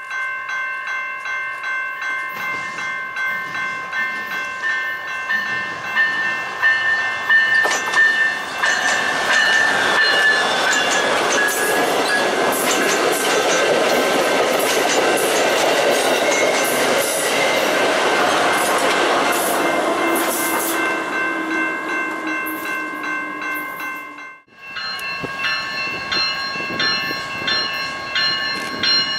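Amtrak Midwest passenger train of Siemens Venture cars approaching and then passing close by, its wheels and cars getting steadily louder to a long rushing peak, while a railroad crossing bell rings steadily. After a brief break the bell keeps ringing as a CN freight led by diesel locomotives approaches.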